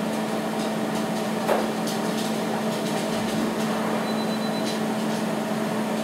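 Electric fan running with a steady hum, switched on to clear smoke from burning toaster crumbs; a faint tick about a second and a half in.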